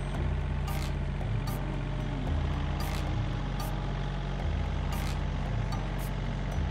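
Yanmar tractor's diesel engine running steadily under way as it drives across a paddy field, with a low hum that swells and eases every second or two. Sharp clicks or knocks come every second or two.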